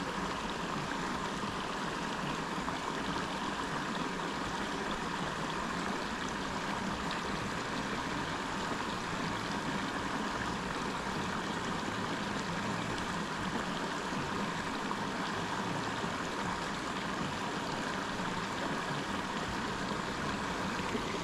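Steady rush of running water, an even noise that does not change.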